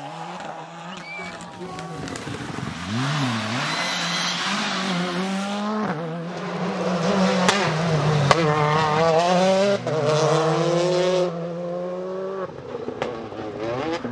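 Rally cars revving hard through corners, one after another, the engine pitch climbing and falling with each gear change, with tyre noise on the loose surface. The loudest run of revs cuts off abruptly about two-thirds of the way through.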